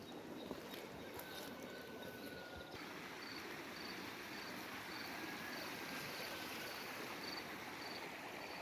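Faint outdoor background noise with an insect chirping, short high chirps repeating about twice a second from about three seconds in.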